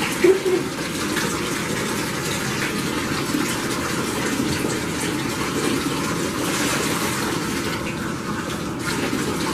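Bathtub faucet running, water gushing steadily into the tub as it fills with clean water.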